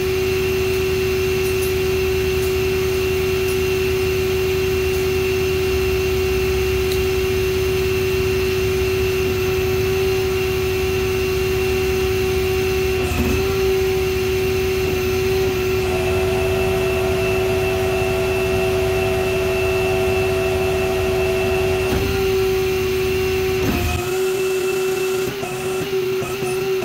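A steady machine whine: one constant tone with a higher one above it, over a low rumble. The rumble drops away near the end, and the whine wavers briefly twice before that.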